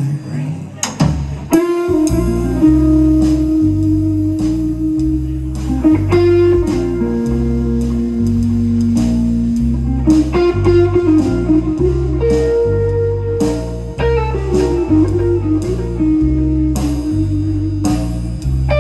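Live blues band playing an instrumental passage: electric guitar holding long sustained notes over electric bass and a drum kit keeping a steady beat.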